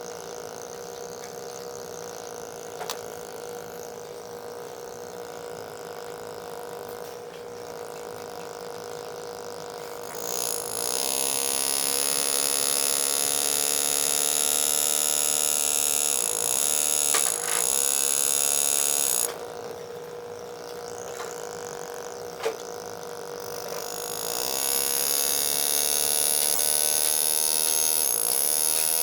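Power engraving handpiece buzzing as it cuts the steel of a shotgun receiver, over a steady hum. The buzz comes in about ten seconds in, stops a few seconds before the last third, and starts again near the end.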